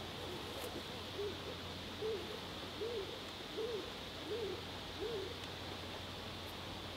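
A bird's call: a series of about seven low notes, each rising and falling, evenly spaced about three-quarters of a second apart and stopping a little past halfway.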